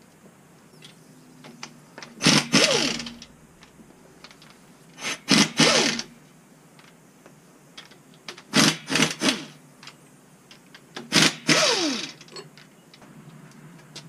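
Impact wrench with a 15 mm deep-well socket, run in four short bursts of about a second each, loosening the main cap bolts on a Gen 3 6.4 Hemi block. Each burst ends with a falling whine as the tool spins down.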